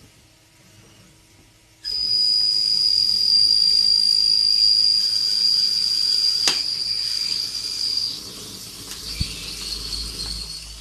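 CNC lathe machining: a steady high-pitched whine over a hiss starts abruptly about two seconds in, holds for about six seconds, then continues more weakly, with a single sharp click in the middle.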